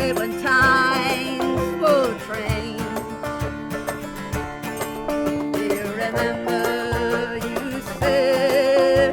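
Instrumental break in a song: sustained melody notes, some with a wavering vibrato near the start and near the end, over a steady beat.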